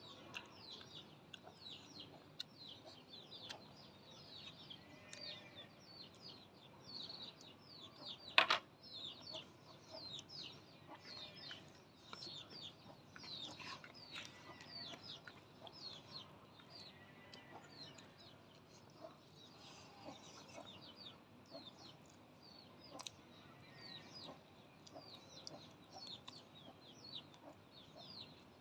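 Chickens clucking now and then against a steady chatter of small birds chirping. A single sharp knock sounds about eight seconds in.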